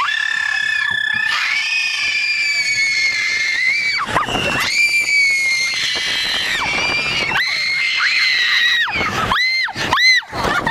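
A woman's long, shrill, high-pitched screams, each held for a few seconds with small slides in pitch, three in a row, then two short rising-and-falling shrieks near the end.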